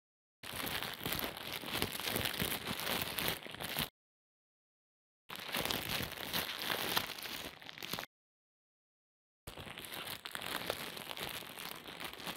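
Dense crackling, crunching sound effect in three stretches of about three seconds each, every one cut off into dead silence before the next begins.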